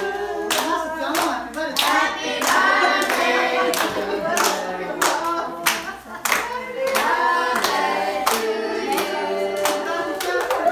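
A group of people singing together while clapping along in time, about two claps a second.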